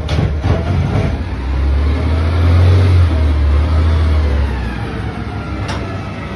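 Garbage truck engine pulling away slowly. The deep rumble swells about halfway through as it accelerates, then eases off, and a sharp click comes near the end.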